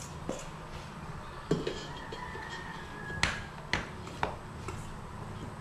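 Stainless steel mixing bowl knocking against the steel bowl of a stand mixer as it is tipped to pour: a few light clicks, then three sharp metallic knocks about half a second apart a little past the middle.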